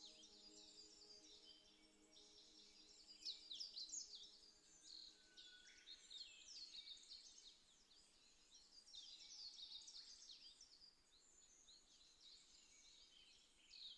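Faint birdsong: many small birds chirping at once in a dense, overlapping chorus. Soft sustained music tones die away in the first second or two.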